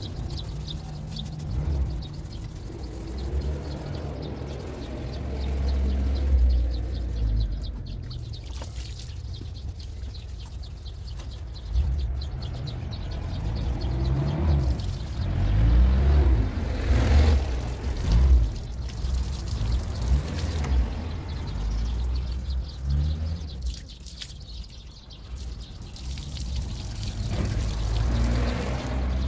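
A low, uneven rumble like passing road traffic, with water from a garden hose running and splashing onto the ground and birds chirping.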